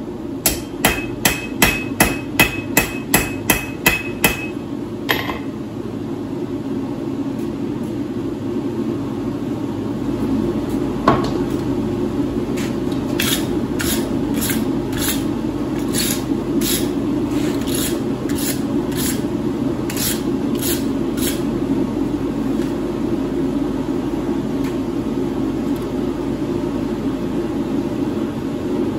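Hand hammer striking a hot steel bar on an anvil, about three blows a second with a ringing tone, stopping about five seconds in. After that a steady rushing noise, typical of a gas forge burner. Over it there is a single knock about eleven seconds in, then a run of lighter taps about two a second.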